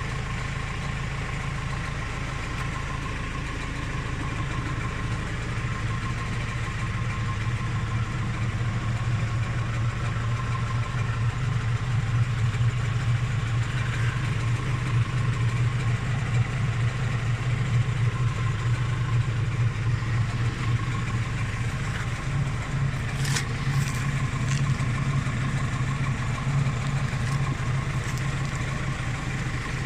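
Claas Rollant 255 RotoCut round baler being run stationary off a tractor's power take-off on a test run, the tractor engine and baler drive running steadily with a steady high whine. The low running sound grows louder over the first several seconds. There are a few light clicks about three-quarters of the way through.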